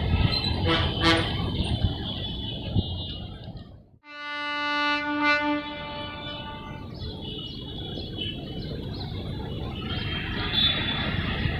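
Running noise of a train, cut off abruptly about four seconds in. A locomotive air horn then sounds one steady note for about two seconds, and the train's running noise returns.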